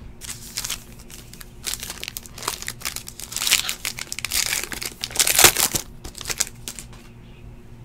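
Clear plastic wrapper crinkling as it is peeled by hand off a trading card, in irregular crackly bursts, loudest about three and a half and five and a half seconds in.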